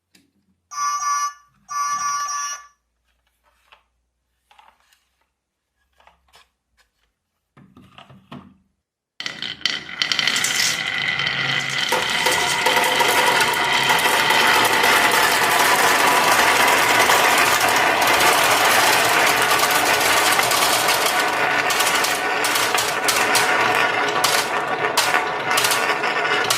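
Two short beeps about a second apart, then a few faint clicks. From about nine seconds in comes a loud, dense, continuous clatter of many marbles rolling and clacking down a rain-gutter and wooden-rail marble run.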